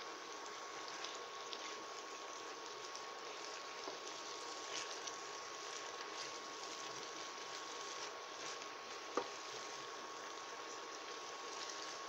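Curly endive simmering in coconut milk in a stainless steel pan, a steady bubbling hiss, stirred with a wooden spoon that gives a few light ticks and one sharp knock on the pan about nine seconds in. A faint steady high tone runs underneath.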